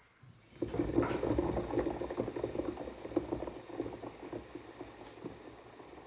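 Water boiling in a kettle: dense bubbling and crackling that comes up about half a second in, is strongest in the next couple of seconds, then gradually eases.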